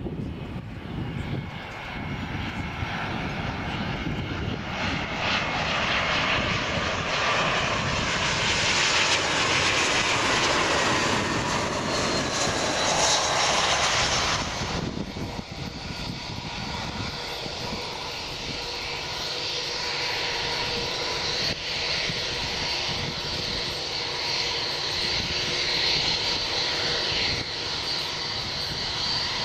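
Airbus A319's twin IAE V2500 turbofan engines on landing: the noise builds with a falling whine as the airliner comes in close to touchdown, drops off sharply about halfway through, then carries on as a steadier whine while it rolls out down the runway.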